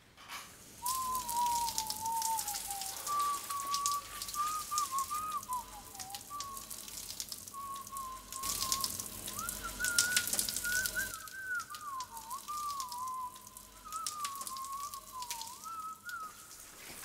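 Someone whistling a wandering tune over the hiss of running water, with fine crackling and splashing in the hiss.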